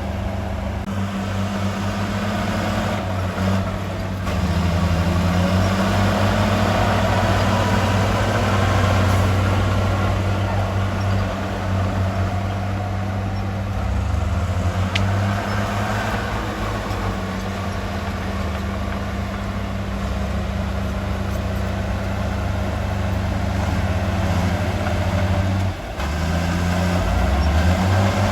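Heavy diesel construction machinery running steadily, its low engine note stepping up and down several times as the load changes.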